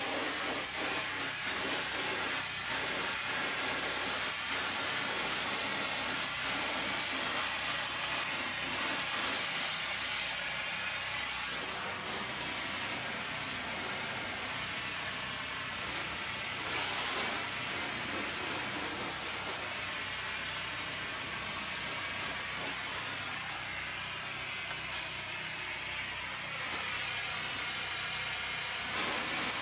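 Water spray from a pressure-washer wand hissing against a canvas awning, over the steady running of the pressure washer's Honda GX390 single-cylinder engine. The spray swells louder briefly about two-thirds of the way in and again near the end.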